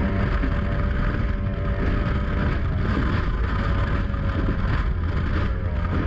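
Mercury 2.0-litre V6 two-stroke outboard running steadily at high speed, pushing a speedboat at about 95 km/h, with wind buffeting the microphone and water rushing past the hull.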